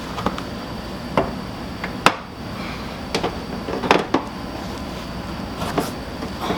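A series of sharp knocks and clicks at uneven spacing, about seven in all, the loudest about two and four seconds in: a Toyota Sienna's plastic rear door trim panel being handled and pushed back into place.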